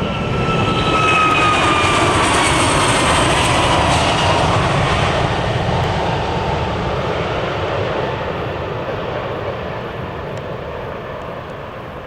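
Airbus A321neo jet engines at high power passing close by. Steady engine tones slide down in pitch as it goes by, and the roar swells in the first few seconds, then fades gradually.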